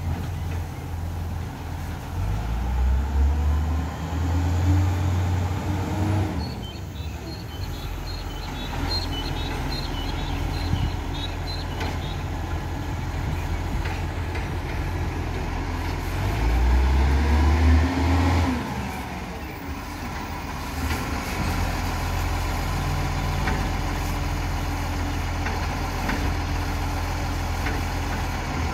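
Garbage truck's diesel engine running as the truck works along the street. The engine speeds up and settles twice, about three seconds in and again past halfway.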